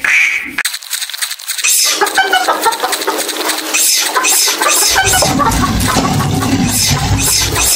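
Dubbed animal-cry sound effects of short chirpy calls over quick clattering, joined by a low steady rumble about five seconds in.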